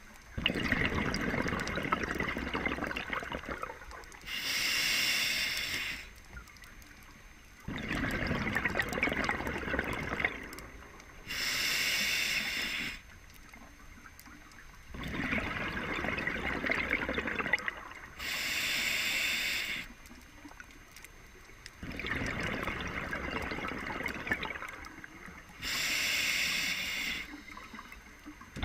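A scuba diver breathing through an open-circuit regulator underwater, four slow breaths about seven seconds apart. Each breath is about three seconds of bubbling from the exhaust, then a smooth, even hiss of inhalation lasting about a second and a half.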